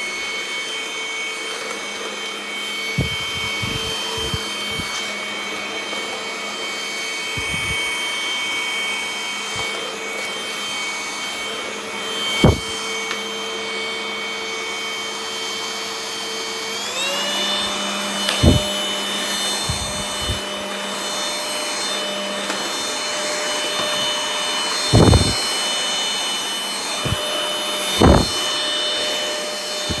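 180 W cordless stick vacuum cleaner running with a steady high motor whine that steps up to a higher pitch about halfway through. A few short low thumps are heard along the way.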